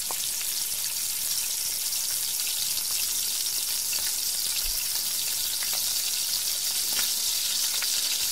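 Shrimp sizzling in hot oil in a pan, a steady high hiss, with a few light taps of a wooden spatula as they are stirred.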